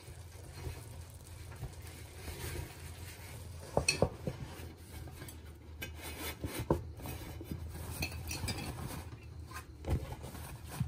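Steel lid being set on a steel pot of rice to close it for dum (steaming), with a few metal clinks and knocks, the loudest about four seconds in. Cloth is handled as it is wrapped over the lid, and a low steady hum runs beneath.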